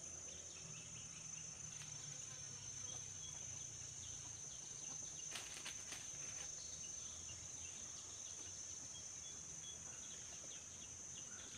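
Steady, high-pitched drone of insects, with a short patch of faint clicking or rustling about five and a half seconds in.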